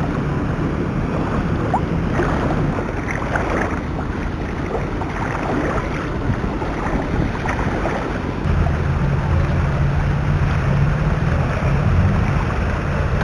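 Water sloshing and splashing around the legs of someone wading through knee-deep floodwater, with wind on the microphone. About eight seconds in, a steadier low rumble comes in under the water noise.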